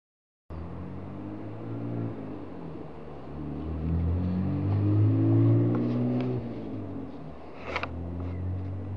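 Motor vehicle engine running and passing by, rising in pitch and loudness toward the middle and then easing off, with a sharp click near the end.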